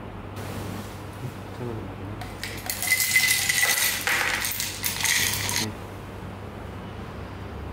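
Ice cubes tipped from a metal scoop into a glass cup of pineapple juice, clattering and clinking against the glass and scoop for about three seconds, starting about two and a half seconds in.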